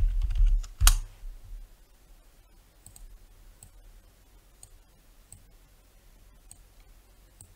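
Computer mouse clicking while nodes are placed and dragged: a low thump at the start and a sharp click about a second in, then faint single clicks roughly once a second.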